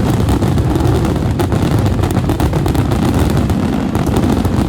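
Fireworks grand-finale barrage: many shells bursting in quick succession, so the booms run together into a continuous loud din.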